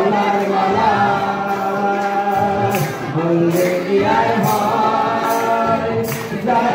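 A group of men singing a song together, accompanied by a harmonium holding steady notes and a few strokes on a hand drum.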